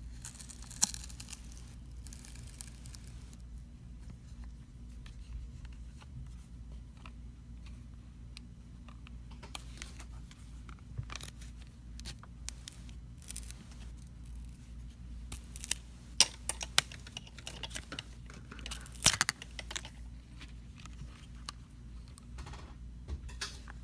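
Scattered small clicks, taps and crackles of a smartphone's plastic back cover and parts being handled and peeled apart from their adhesive. The clicks come thicker and louder in the last third, with one sharp click the loudest, over a steady low hum.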